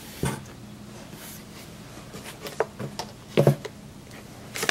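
Hands handling a cardboard product box: a few soft knocks and rustles at uneven intervals, over a steady low hum.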